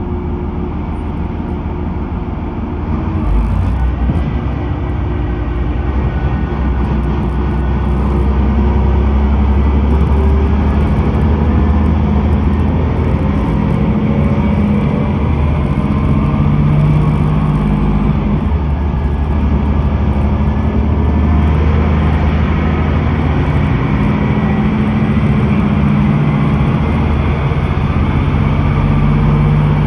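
Inside a KiHa E130 series diesel railcar on the move: a steady low diesel engine drone mixed with the rumble of wheels on rail. It grows louder over the first several seconds.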